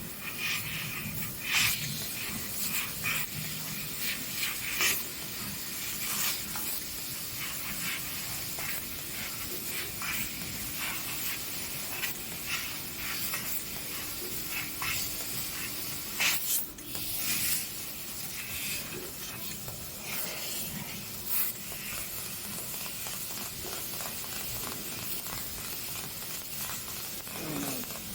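3000 W CNC fiber laser cutting sheet metal: a steady hiss of assist gas with scattered crackles from the cut.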